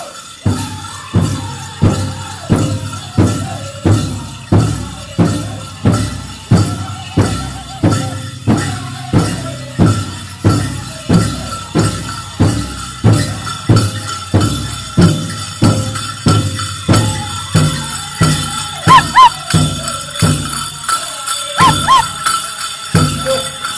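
Powwow drum struck in a steady beat of about one and a half strokes a second, with singing and the jingle of the dancers' bells. Two short, loud, high-pitched double notes cut in near the end.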